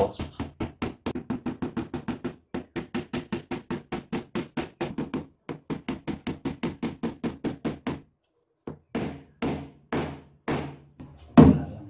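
Claw hammer driving nails through a wooden strip into a plywood bed-frame panel, the panel ringing a little with each blow. The blows come quick and even, about five a second, then stop briefly. A few slower, harder blows follow near the end.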